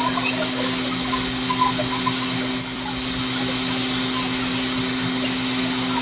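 A small motor running with a steady hum and whir, and one short high-pitched beep about two and a half seconds in.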